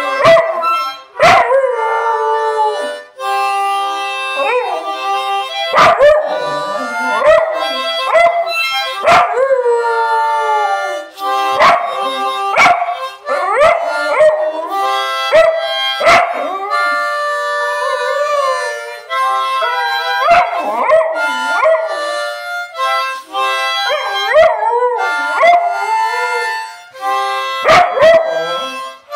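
A dog howling along to a musical instrument played in held chords: repeated howls that swoop up and down in pitch over the instrument's steady notes.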